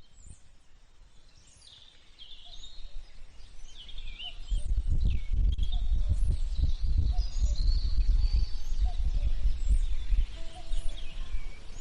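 Several birds chirping and whistling. From about four seconds in, an uneven low rumble builds up and becomes louder than the birds.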